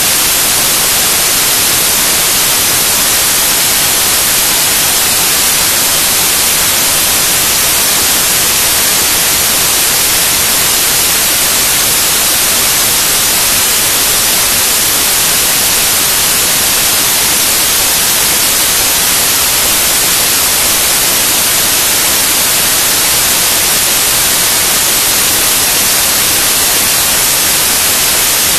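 Loud, steady static hiss with no change, strongest in the highs. It is raw file data read back off a Mini DV tape and played out as sound.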